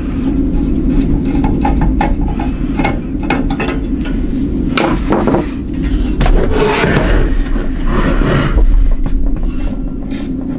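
Irregular clinks, taps and scraping of metal hardware being handled, over a steady low hum.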